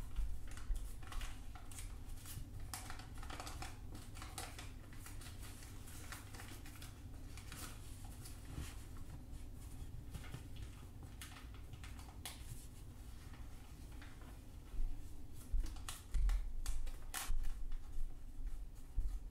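Origami paper crinkling and rustling as it is folded and creased by hand into a masu box, with irregular crisp crackles. Louder handling bumps come in the last few seconds.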